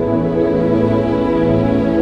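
Calm ambient background music with long held chords.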